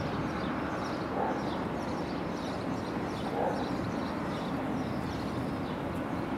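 A dog barks twice in the distance, about a second in and again a little past halfway, over a steady low outdoor rumble.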